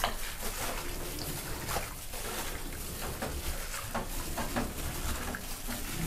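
Raw chicken pieces being mixed by hand in a soy-sauce and sesame-oil marinade: irregular wet squishing and clicking.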